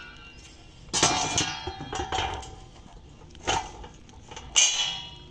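Large round flat iron griddle clanking against its iron stand over a wood fire as it is set in place: four metal knocks, each ringing out briefly, the first and last the loudest.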